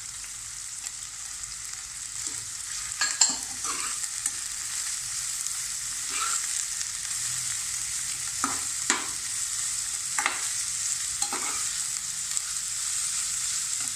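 Sliced vegetables stir-frying in hot oil in a kadai: a steady sizzle, with a spatula scraping and knocking against the pan several times, the loudest about three seconds in.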